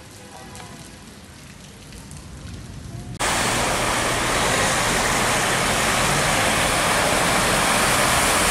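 Light rain falling on a flooded street, faint. About three seconds in it cuts to a loud, steady wash of traffic driving through deep floodwater, tyres throwing up spray.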